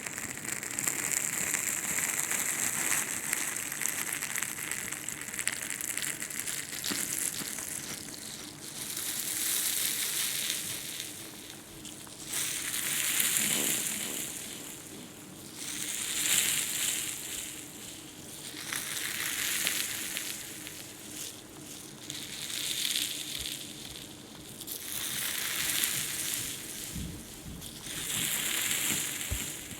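Crackly scratching and rubbing on an ASMR ear microphone, the sounds of ear picking and gripping. It comes in slow swells that rise and fade about every three seconds.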